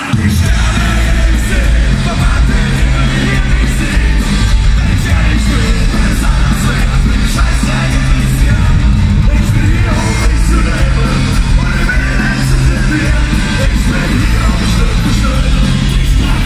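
Live rock band coming in loudly right at the start: electric guitars, bass and drums with sung vocals, and the audience singing and yelling along.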